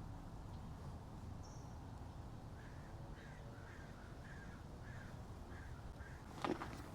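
Faint bird calls in a series of short, evenly spaced calls, about two a second, then a single sharp click near the end.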